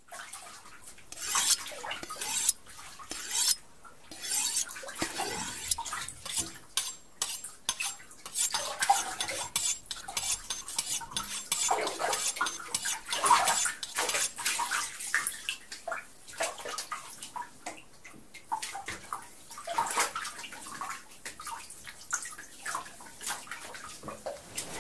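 Bathwater splashing and sloshing in a tub, with many small irregular clicks, knocks and clinks.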